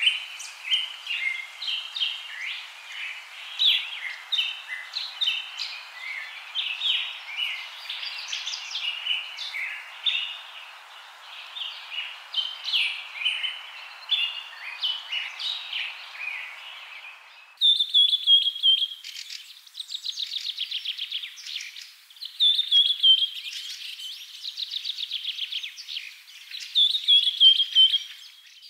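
Birds chirping and singing, many overlapping short calls. About 17 seconds in it cuts sharply to different birdsong, with rapid trills and short falling whistles.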